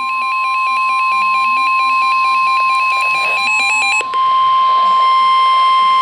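NOAA weather radio sounding its steady high warning alarm tone for a flash flood warning. For the first four seconds a second alert receiver's fast warbling beeps sound over it, then stop, leaving the steady tone.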